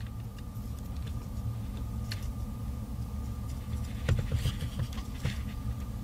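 Soldering iron heating flux on a pin terminal: a few faint crackles about four to five seconds in, over a steady low hum.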